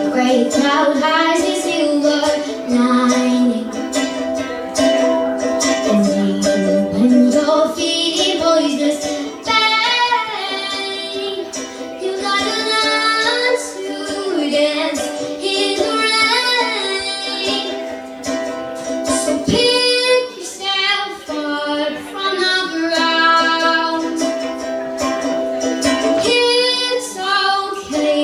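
A woman singing a slow song with a strummed acoustic string instrument accompanying her.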